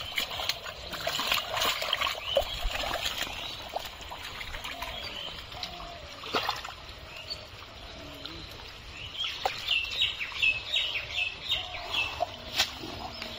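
Hands splashing and squelching in shallow muddy water, with irregular slaps and wet clicks as fish are grabbed and dropped into a basin. Roughly two thirds of the way through, a bird gives a quick run of about seven short chirps.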